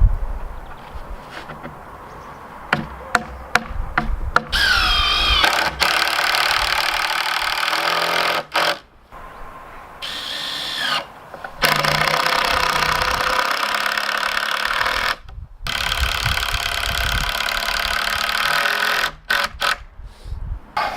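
A cordless drill runs in three long pulls of the trigger, driving screws into a wooden frame; its motor whine glides in pitch as it spins up. A few knocks come before the first run.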